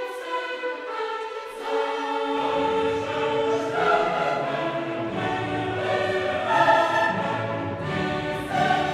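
Background choral music, voices holding chords; a deeper low part comes in about two seconds in.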